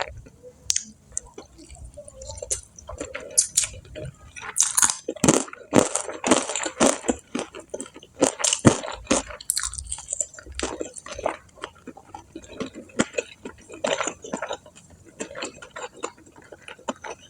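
Close-up chewing and crunching of fried chicken and crispy fried snacks, with irregular crackles and wet mouth sounds.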